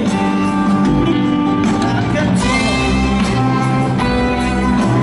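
Live rock band playing: electric guitar and Hammond organ over drums and bass, loud and continuous.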